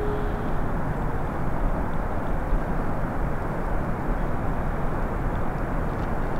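A steady, even rushing noise with no distinct events, and a brief held tone right at the start.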